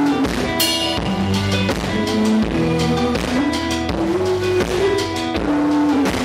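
A three-piece rock band playing live: electric guitar, electric bass and drum kit.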